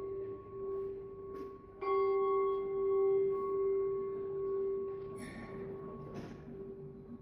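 Tibetan singing bowl ringing with a steady, wavering tone and a few higher overtones. It is struck again about two seconds in, and the ring then slowly fades.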